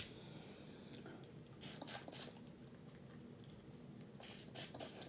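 Faint eating sounds: soft wet clicks of chewing and lip-smacking in two short clusters, about one and a half seconds in and again near the end.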